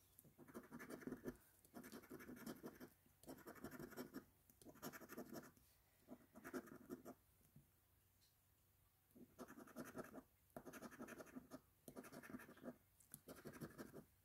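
A coin scratching the coating off a scratch-off lottery ticket, in a series of short strokes of about a second each, with a pause of about two seconds midway.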